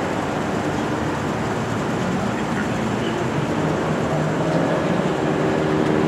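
Steady vehicle noise: engine and street-traffic rumble with no sharp events. A low hum becomes more noticeable about four seconds in.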